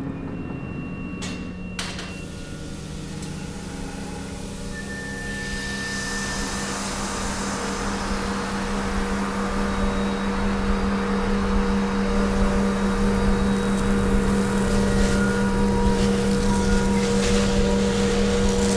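Ambient drone soundtrack: a steady low hum with a few held tones, under a hiss that swells and grows louder through the passage. There is a single sharp click about two seconds in.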